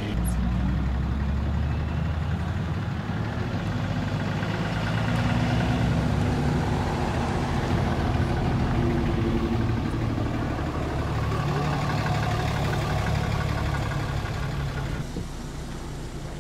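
Vehicle engine running at low speed. Its low hum shifts in pitch several times, with a steady rushing noise above it that drops away near the end.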